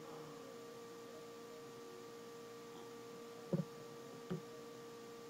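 Steady faint electrical hum, a high tone under a computer microphone's room tone. Two short clicks from a computer keyboard come a little past the middle, about a second apart.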